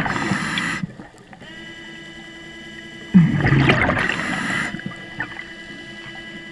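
A scuba diver's exhaled breath bubbles out of the regulator twice, each burst lasting about a second and a half and starting with a low grunt. Under it runs the steady whine of an underwater scooter's motor, which stops near the end.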